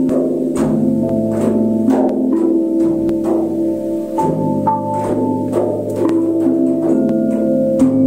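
Flat metal bells (bilas) struck in a steady rhythm, about two strikes a second, each leaving a clear pitched tone that rings on and overlaps the next.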